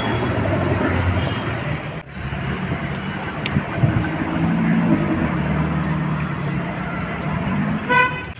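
Sports cars driving past on a roundabout, their engines running over traffic noise. A car horn toots briefly near the end.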